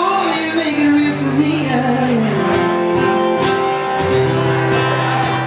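A man singing a melody while strumming an acoustic guitar, live, holding one long note around the middle.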